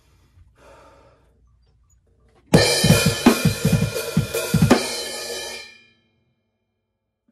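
PDP drum kit with Zildjian cymbals struck hard: cymbals crash together with a quick run of about nine low drum hits over two seconds. The cymbals ring on and then cut off abruptly.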